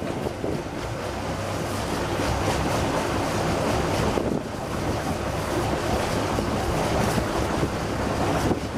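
Twin Caterpillar 3116 six-cylinder marine diesels idling steadily, with their wet exhaust splashing out at the transom into the water.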